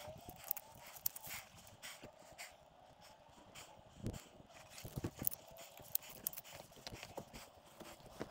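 Irregular footsteps and sharp knocks of boots on rock, with a faint whistling tone gliding up and down.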